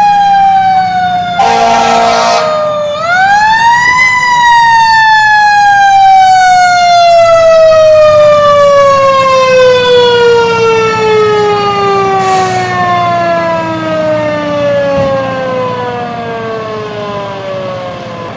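Fire engine siren winding up twice, then running slowly down in pitch for a long time as it coasts to a stop. A short horn blast sounds about two seconds in, over a steady low engine hum.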